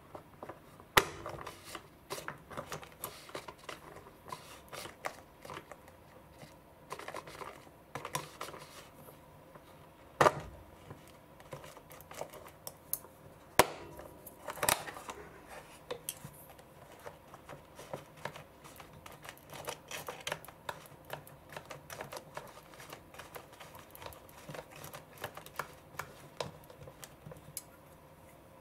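Chopsticks and fingers tapping, scraping and clicking on a plastic roll-sushi maker as sushi rice is worked into it: a steady run of light taps, with a few sharper plastic knocks about a second in and again around ten and fourteen seconds.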